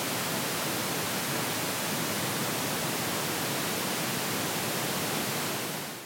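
Pink noise test signal from a DTS-HD Master Audio speaker phase check, played in phase through the left surround and right speakers: a steady, even hiss with nothing below about 100 Hz, fading out at the very end.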